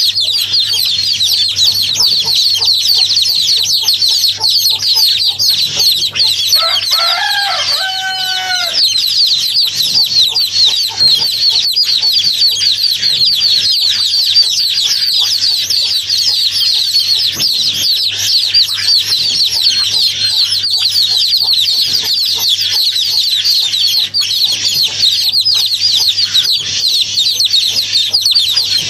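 Many small birds peeping in a dense, high, unbroken chorus, with a lower call of a few notes about seven seconds in.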